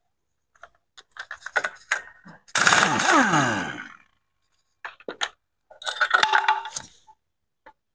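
Metal clinking and scraping as the rear clutch and driven pulley assembly is worked off its shaft on a Yamaha Mio GT scooter's CVT. The loudest part is a grating slide about a second long with a falling pitch near the middle. More clinks and scrapes follow.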